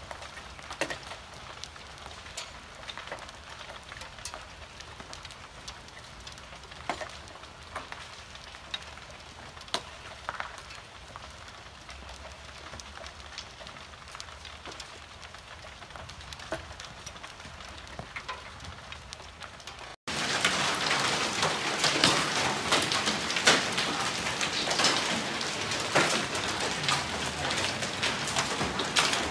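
Hail falling: scattered hailstones tick on a backyard trampoline's mat and the ground over a steady patter. About twenty seconds in it cuts to a much louder, denser downpour of hail, with many hits close together.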